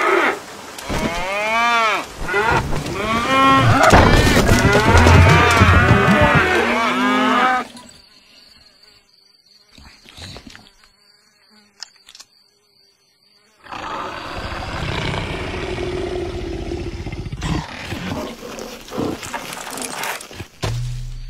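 Cows mooing, several long calls one after another that rise and fall in pitch, for the first seven or so seconds. Then a quiet stretch with a faint high steady tone, followed by a long noisy stretch with no clear pitch.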